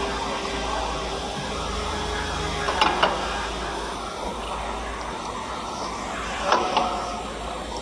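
Steel ATC router tool holder and collet spanner knocking against a metal tool-tightening fixture: a pair of sharp metal clicks about three seconds in and another pair near six and a half seconds, over a steady background hum.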